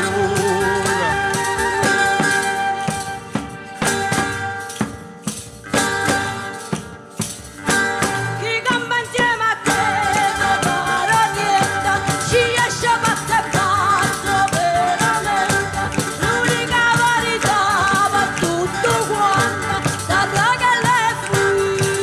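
Live southern Italian folk band playing: a transverse flute carries the melody over plucked strings and rattling hand percussion, and a woman sings. The music thins out and drops in level a few seconds in, then the full band comes back.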